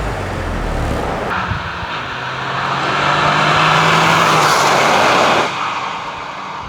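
Chiptuned Toyota GR Yaris, its turbocharged three-cylinder engine and exhaust running under power. The sound swells into a loud rush about a second in and drops away suddenly about five and a half seconds in.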